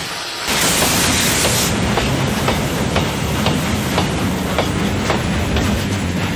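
Steam locomotive getting under way: a burst of steam hiss, then a steady rhythmic chuff and clack about twice a second.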